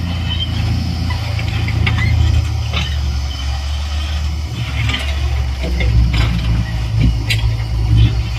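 Heavy diesel engine running steadily under load, with scattered short knocks and clanks and brief squeaks of working machinery.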